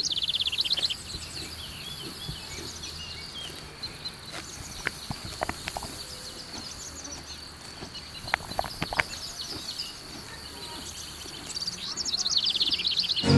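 Songbirds singing in rapid trills and chirps over a steady high insect drone, with a few short crisp clicks in the middle.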